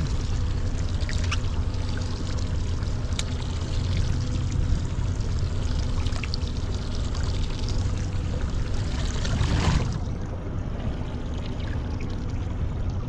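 Steady rush of water and wind around a fishing boat at sea, over a low steady hum from the boat; the hiss thins out about ten seconds in.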